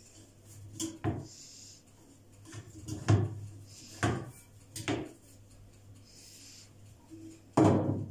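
Metal cake pan being tilted and turned on a countertop, knocking against it in about six separate clunks; the loudest, longest one comes near the end as the pan is set down.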